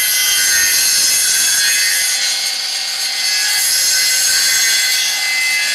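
Circular saw disc on a homemade copying machine, driven by an electric motor, cutting a wooden propeller blank along a template: a steady, high-pitched sawing noise. The blade has gone slightly dull, which the builder says leaves a fuzzy cut.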